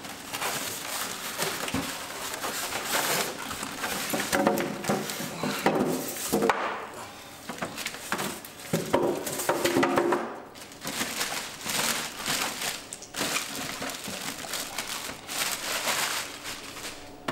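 Packaging rustling, crinkling and scraping with scattered knocks as a boxed aquarium chiller is pulled out of its box by hand.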